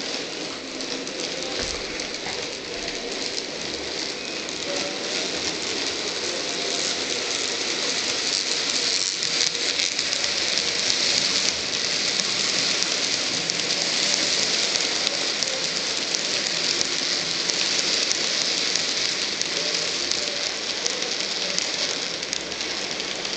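N-scale model train, a Brawa class 132 locomotive hauling Arnold silo wagons, running on the layout track: a steady, fine clicking rattle of the small wheels on the rails along with the model's motor, growing a little louder over the first several seconds.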